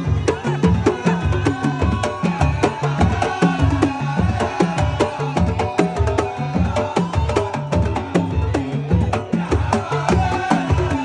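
Middle Eastern music: a steady, fast beat of low drum strokes about three a second under a melodic line.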